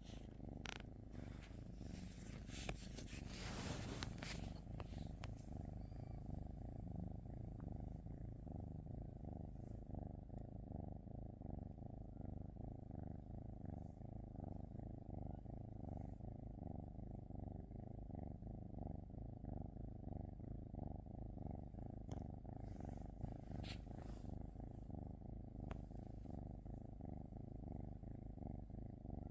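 Norwegian Forest cat purring steadily, in a gently pulsing rhythm. Brief rustling noises come a few seconds in and again near the end.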